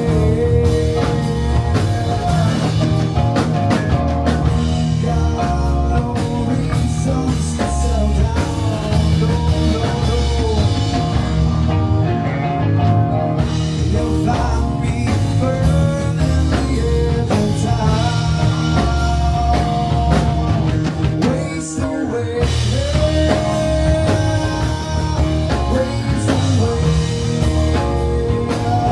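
Swamp-rock song played by a rock band: drum kit and electric guitar, with a singer's voice over them.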